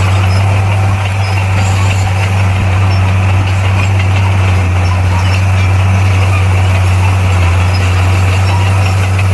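Bulldozer's diesel engine running steadily, a loud, unchanging low drone.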